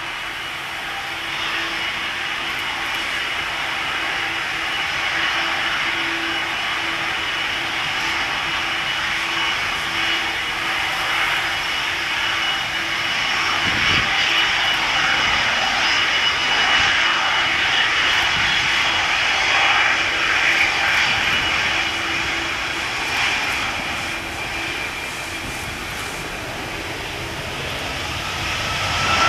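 Boeing 767-300ER's twin General Electric CF6-80C2 turbofan engines running at low thrust on the runway, a steady whine over a broad rushing noise that grows louder about halfway through. Near the end the engines begin spooling up for the takeoff roll, the sound swelling.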